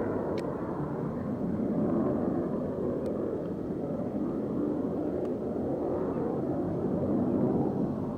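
Distant jet engine roar of F/A-18 Hornets in flight, a low rumble that swells and fades, with a few faint clicks.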